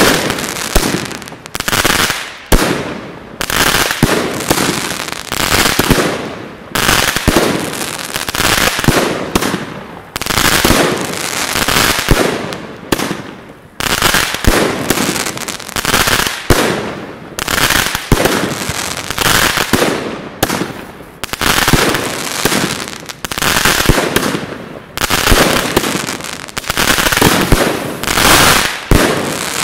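A 114-shot consumer fireworks cake (Pangu Fireworks' Brasilian Box) firing shot after shot, about one a second, each a sharp bang trailing into crackle.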